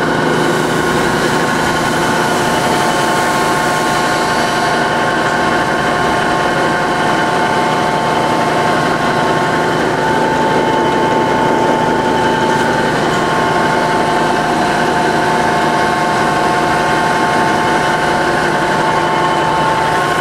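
Ohmiya OC-16A centerless grinder running steadily: an even machine hum with several steady whining tones, one of which grows stronger for a few seconds near the middle.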